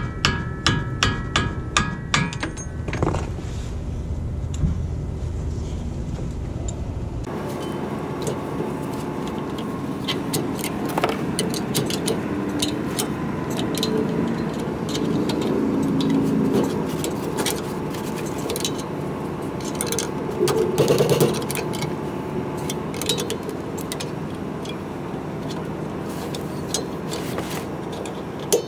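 Hammer blows on a steel rod set in a truck's rear disc brake caliper, quick and evenly spaced at about three a second with a metallic ring, stopping about two seconds in. Scattered metallic clinks and scrapes of the caliper and pads being handled follow, with one sharp knock near the end.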